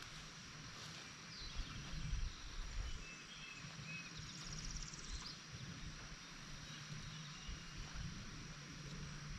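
Rural outdoor ambience: a steady high insect hum, with birds chirping now and then and a brief rapid high trill about four seconds in, over a low wind rumble on the microphone.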